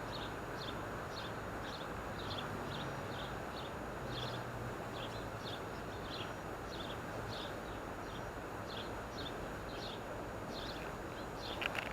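Steady outdoor noise with a short high chirp repeating about twice a second, and a few sharp clicks near the end.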